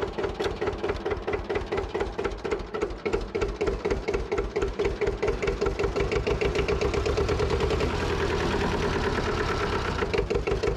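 Lanz Alldog A1806 tractor's diesel engine running under way, with a regular pulsing beat. Close and loud, it sits right beside the driver's seat. The beat evens out for a couple of seconds near the end, then pulses again.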